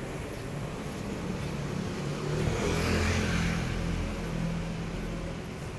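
A motor vehicle drives past close by: its engine drone builds, is loudest about three seconds in, then fades.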